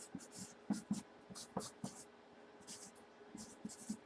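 Felt-tip marker writing: a run of short, scratchy pen strokes with a few light knocks on the table.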